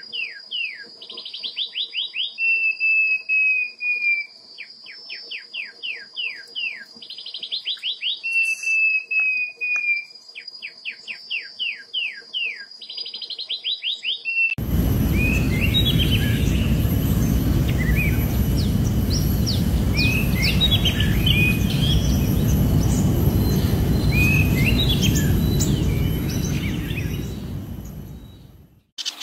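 A wild songbird repeating its phrase: a quick run of descending notes, a short buzzy trill, then a long, slightly falling whistle, over a steady high insect drone. About halfway through, the sound changes abruptly to a loud, low rushing noise with scattered bird chirps, which fades out near the end.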